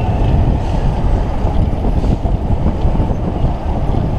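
Loud, uneven rush of wind buffeting the microphone of a camera riding in a spinning giant chain swing ride's gondola, heavy in the low end.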